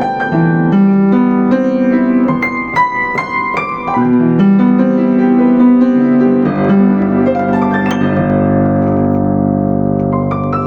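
Yamaha U5 upright piano played solo: a flowing run of struck notes, then a chord held and left to ring and fade for a few seconds before playing picks up again near the end.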